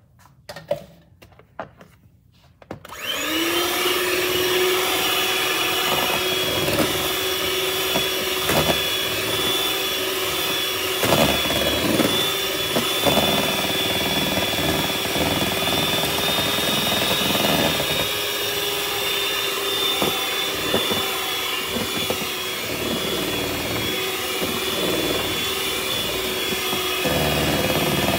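A few knocks, then an electric hand mixer switches on about three seconds in and runs steadily with a constant whine, its beaters working flour into cake batter in a plastic bowl.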